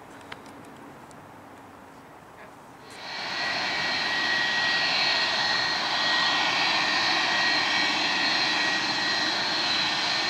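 Faint outdoor background with a small click, then, about 3 s in, the jet engines of a United Airlines Boeing 757-300 come in and run steadily, a dense jet noise with a high, steady whine on top, as the airliner moves along the runway.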